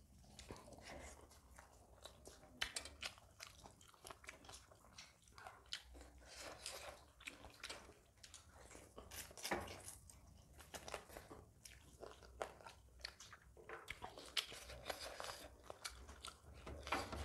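Chewing and mouth sounds of two people eating rice and curry by hand, with irregular soft clicks and small crunches throughout.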